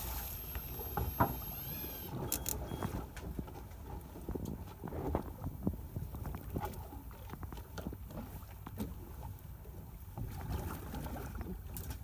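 Sea water sloshing and lapping against the side of a small fishing boat, an uneven wash with many small splashes.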